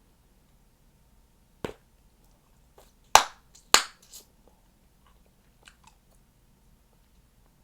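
Chewing gum being popped in the mouth: a sharp pop, then two loud pops about half a second apart, followed by a few fainter clicks.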